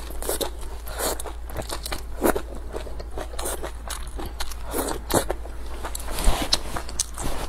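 Close-miked eating: a person biting and chewing a mouthful of spicy braised food, a run of irregular short mouth clicks and smacks.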